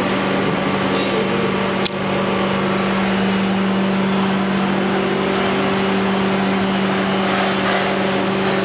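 Hydraulic drive of a traditional vertical basket wine press running with a steady hum. A sharp click comes about two seconds in, and a second, higher hum joins about five seconds in.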